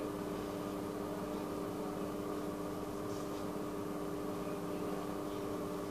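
A steady machine hum with several constant tones over a faint hiss.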